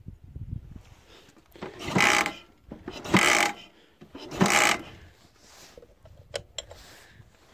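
MT Dnepr opposed-twin motorcycle engine being cranked to start, with the carburettor needles set in their leanest position: three short strokes about a second apart, then a few faint clicks. The engine does not catch.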